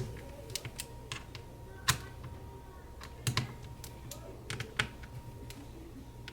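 Irregular small clicks and ticks of a screwdriver working the screen hinge screws tight on a MacBook Pro, with two louder clicks about two and three seconds in.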